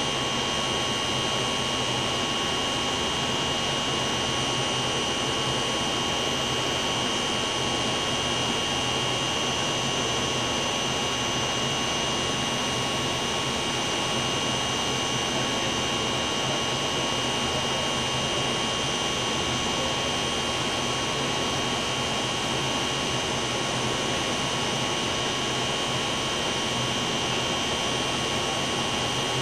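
Steady machinery noise: an even rush with a few thin high whines, each held on one pitch and unchanging.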